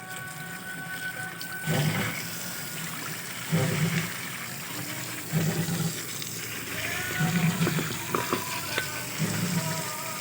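Water splashing and gushing through a refrigerator compressor being flushed out with plain water, in five regular surges about two seconds apart.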